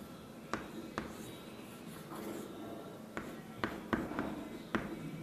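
Chalk scratching on a blackboard as lines are drawn, with several sharp taps where the chalk strikes the board.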